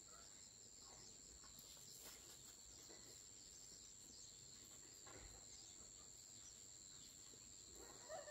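Near silence: faint outdoor ambience with a steady high-pitched insect trill and a few faint clicks.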